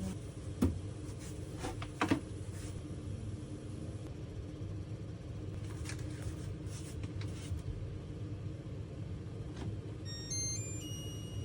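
A steady, low mechanical hum with a few sharp clicks early on. Near the end comes a short run of electronic beep tones stepping upward.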